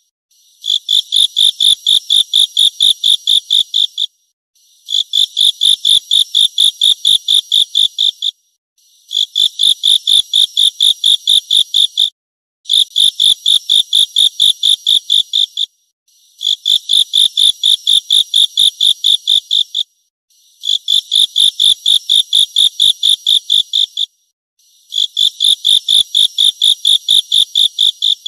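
Grasshopper song: bursts of rapid, evenly spaced high-pitched chirping pulses, about four to five a second. Each burst lasts three to four seconds and stops dead before the next, seven times in a row.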